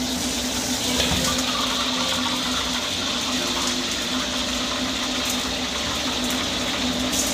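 Steady rushing of a gas wok burner heating oil in a carbon-steel wok, under a steady low hum, with a couple of light clicks of the steel ladle against the wok late on.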